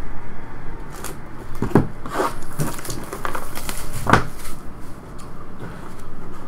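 Trading cards and their packaging being handled on a table: a few short knocks and rustles, the loudest about two seconds and four seconds in, over a steady low hum.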